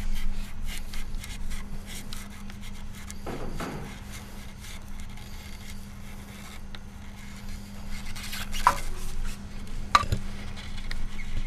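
Razor knife cutting and scraping through fluted desiccant patch material, trimming the excess flush with the rotor face: a run of fine scratchy crackles, with a couple of sharper clicks near the end.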